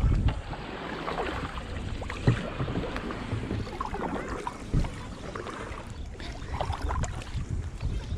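Kayak paddling on the sea: paddle strokes splashing and dripping, with wind buffeting the microphone as a low rumble and a few sharp knocks, the loudest about two and a half and five seconds in.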